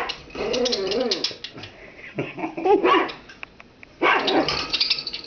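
Puppy barking and growling at a pet bird in four short, loud bursts with pauses between.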